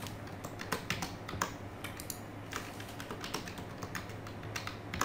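Typing on a computer keyboard: a run of short, irregular key clicks, some louder than others.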